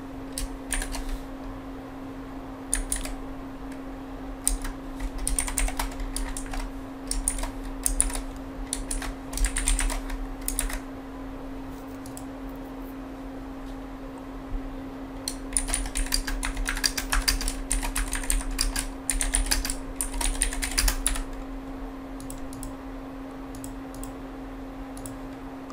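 Typing on a computer keyboard in two bursts of rapid key clicks: the first lasts about ten seconds, and the second starts a little past halfway and lasts about five. A steady low hum runs underneath.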